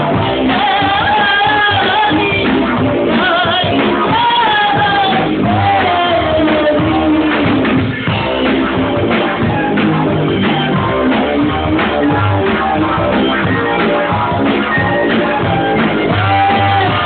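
A band playing loud, continuous up-tempo music with a gliding sung or played melody line over bass and drums.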